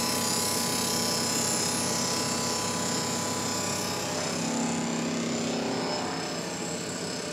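Shell mill on a Haas TM1 vertical mill spinning at about 2000 RPM and taking a light face-milling pass across an aluminium part: a steady whirr of the spindle with a high hiss from the cut. The high hiss fades about six seconds in while the machine keeps running.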